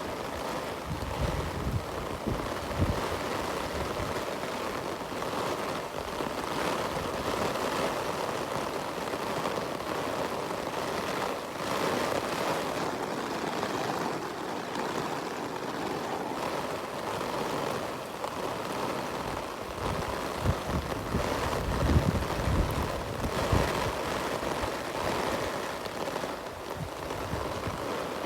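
Steady rain falling, a constant hiss, with bursts of wind rumbling on the microphone near the start and again about twenty seconds in.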